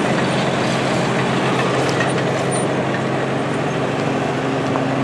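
Diesel engine of heavy construction equipment running steadily: a constant low hum under an even rushing noise.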